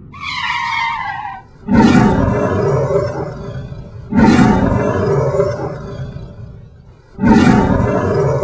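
Sound effects: a short falling tone right at the start, then three loud hits about two and a half seconds apart, each starting abruptly and fading away over about two seconds.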